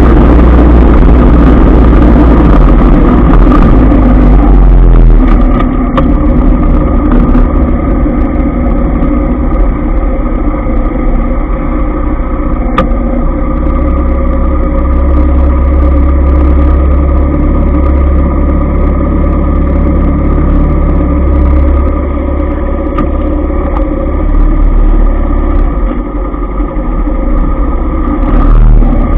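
Motorbike ride in city traffic heard from the bike itself: engine running with wind rumbling on the microphone. About six seconds in the rushing hiss drops away as the bike slows, and the engine and the surrounding traffic hum on steadily while it waits in traffic.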